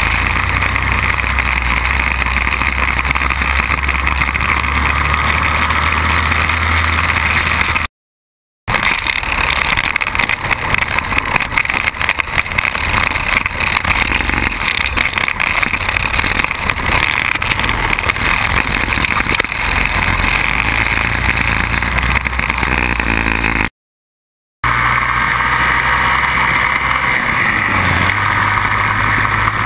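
Quad bike engine running at riding speed, heard from the bike itself. Through the middle stretch, on rough rocky ground, the sound is broken up by many knocks and jolts. The sound drops out to silence twice, briefly, about 8 and 24 seconds in.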